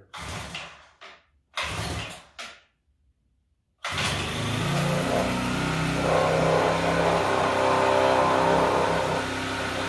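Eskimo P1 Rocket propane ice auger's 40cc engine being pull-started. Two quick yanks on the recoil cord are followed by a short pause, then the engine catches about four seconds in and runs steadily. This is a hard start from cold after a year of sitting unused.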